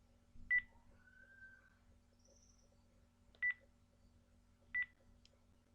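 Telephone keypad beeps as a number is dialed: three short beeps at uneven intervals, one per key press.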